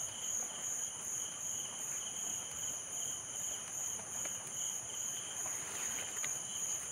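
Steady high-pitched chorus of insects chirring at several pitches at once, the highest pulsing in a fast, even rhythm.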